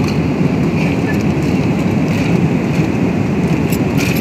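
Steady cabin noise of a Boeing 777-300ER airliner in flight: an even, low rush of engine and airflow noise that does not change.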